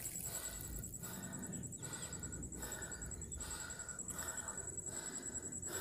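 Faint, rhythmic breathing close to the microphone over low background noise, with no splashing.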